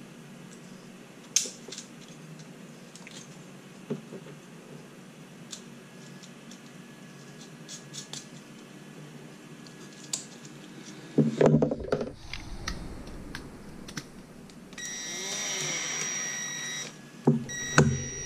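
Light clicks of parts and screws being handled, with a brief clatter about two-thirds in. Then a Ridgid cordless drill/driver runs with a steady whine for about two and a half seconds, driving a screw into the relay module's bracket, stops, and starts again near the end.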